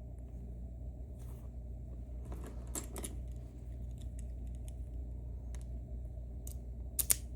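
Light metallic clicks and taps of a Mauer NW4 dimple lock's small parts being handled as the cylinder is taken apart. A sharper click comes near the end, over a steady low hum.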